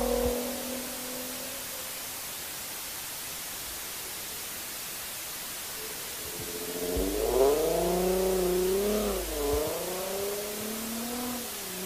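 Volkswagen Golf R32's 3.2-litre VR6 engine being revved in a few throttle blips, its pitch rising and falling, starting about halfway through. Before that there is only a steady hiss.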